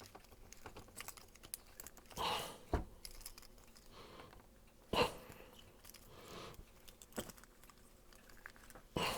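Times Microwave coax stripping tool being turned by hand around LMR-240 cable, its blade cutting into the jacket with faint, irregular clicking and scraping. There are a few louder rustles and a knock along the way.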